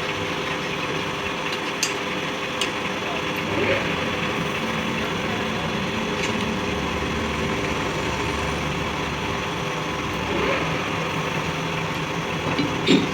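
A motor or engine running steadily, with a few light clicks of metal on metal.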